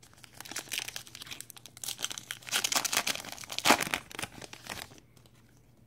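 Wrapper of a Topps baseball card pack being torn open and crinkled: a dense crackling rustle, loudest a little before four seconds in, that stops about a second before the end.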